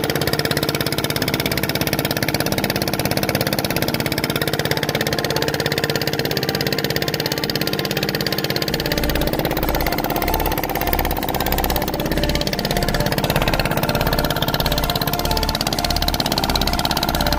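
Engine of a wooden river boat running steadily with an even, rapid beat.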